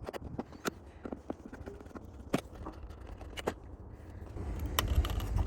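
Scattered clicks, taps and light scrapes of an old wired doorbell button being unscrewed and taken off the wall. A low rumble comes in near the end.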